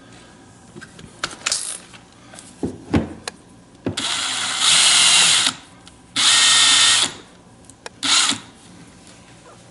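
Small drill spinning a turnbuckle to screw ball cups onto its threads. It makes two runs, about a second and a half and then under a second, with a short blip near the end. Light clicks of small parts being handled come between the runs.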